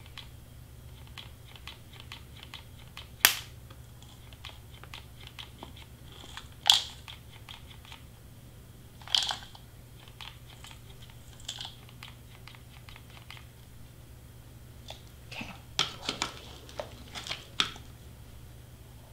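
Handling noise of craft work: light clicks and taps of a plastic shaker dome and a cordless hot glue gun being worked over a cutting mat. There are sharper knocks about three, seven and nine seconds in, and a quick run of taps near the end as the shaker is set down.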